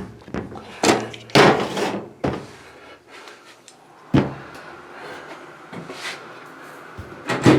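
Washing machine lid and cabinet being handled: a series of separate knocks and clunks, the loudest about a second and a half in.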